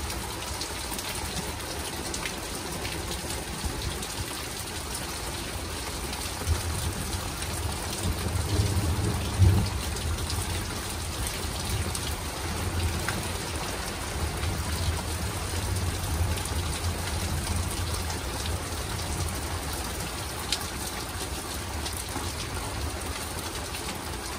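Thunder rumbling low over a steady hiss of rain. The rumble swells about six seconds in, is loudest around nine to ten seconds, and rolls on unevenly before fading.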